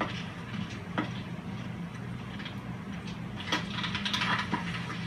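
A few faint clicks and rustles, over a steady low hum.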